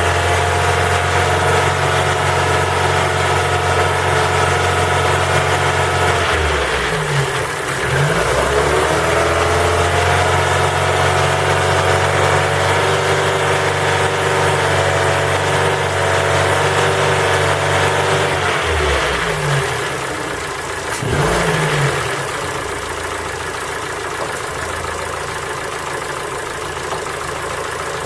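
Ford Focus 3's PNDA 1.6-litre four-cylinder petrol engine running cold, held at raised revs that dip and recover about seven seconds in. About nineteen seconds in it drops to a quieter idle, with one short blip of the throttle. The owner takes the knock in this cold running for piston-pin knock.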